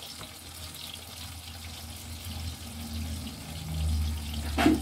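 Water running from a kitchen tap into the sink, with a single sharp knock near the end.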